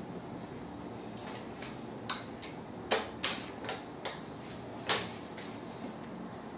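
Several irregular light clicks and taps, spread over a few seconds, over a steady background hum.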